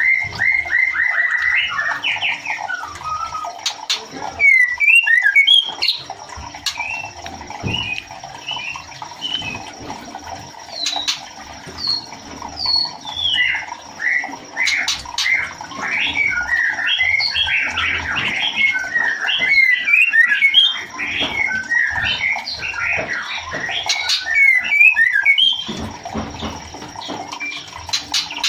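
Female white-rumped shama (murai batu) calling to a male. A quick run of short whistled notes opens, followed by scattered chirps and harsh squawks. These grow into dense chattering in the second half, then stop briefly near the end.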